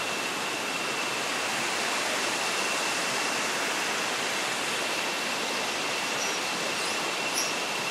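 Steady rushing of a stream flowing below, with a thin, steady high tone running through it.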